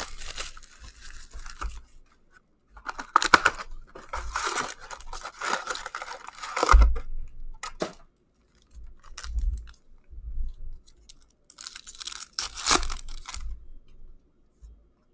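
Cardboard hockey card box being torn open and its foil card packs handled, wrappers tearing and crinkling in several bursts with short pauses, and a thump about seven seconds in.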